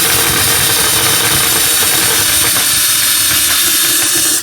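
Power drill running a step bit into a vintage pool ball to enlarge its hole, a loud steady whir with a high motor whine, cutting off at the very end.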